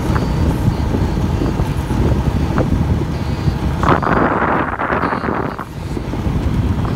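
Wind buffeting the camera microphone: a steady low rumble, with a louder rushing gust about four seconds in that lasts over a second.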